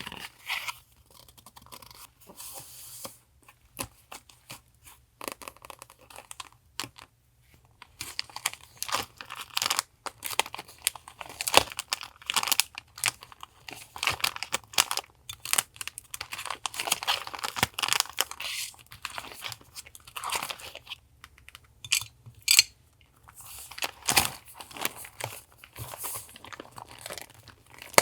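Thick paper being handled: crisp rustling and crinkling in irregular clusters, with scattered light taps and short pauses.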